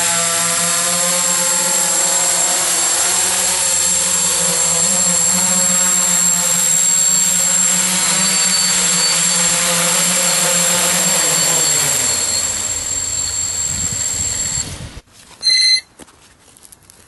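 Hexacopter's six electric motors and propellers humming steadily. About twelve seconds in, the hum falls in pitch as the motors wind down, and it cuts off near the end, followed by a short loud beep.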